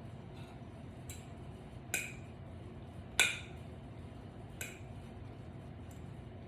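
Cutlery clinking against a plate while eating: four sharp, short clinks, the loudest about three seconds in.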